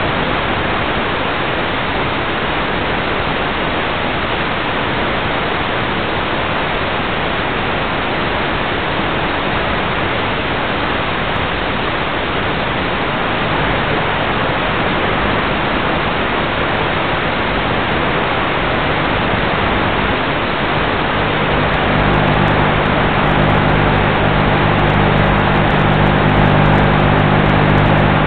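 Steady rushing hiss on the onboard audio of an FPV model plane gliding with its motor off. About three quarters of the way through, a low steady hum with a clear pitch comes in and the sound grows a little louder.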